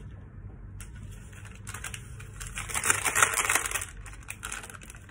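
Metal spoon clinking and scraping against ceramic tableware during a meal, a run of light clicks that is busiest around the middle.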